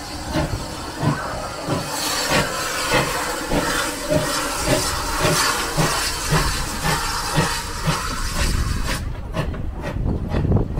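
Steam tank locomotive pulling away with its coaches: a loud hiss of steam over a regular chuffing of about three beats a second. Near the end the hiss stops, leaving sharper knocks from the moving train.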